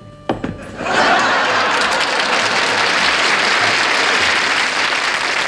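Studio audience applauding, swelling in about a second in and holding steady, after a short sharp knock just before it.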